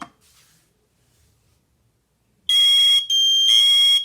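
Newly installed hardwired combination smoke and carbon monoxide alarm sounding its test alarm after its test button is pressed: about two and a half seconds in, a loud, shrill beeping starts in half-second pulses.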